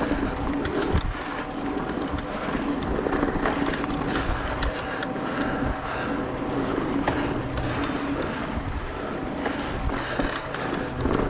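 Mountain bike ridden along a dirt singletrack: tyres running over packed dirt and dry leaves with a steady rushing noise, and the bike's chain and frame rattling in many sharp clicks and knocks over the bumps.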